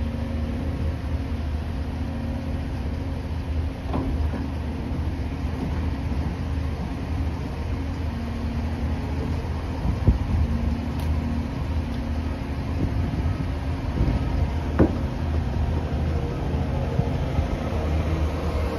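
Cat 336 excavator's diesel engine running steadily while its shear head unloads scrap tractor parts from a trailer, with a few sharp clanks along the way.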